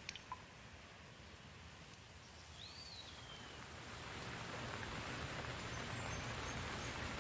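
Rain falling, a steady hiss that grows louder from about four seconds in. A few drops drip just at the start, and a bird gives one short high call about three seconds in.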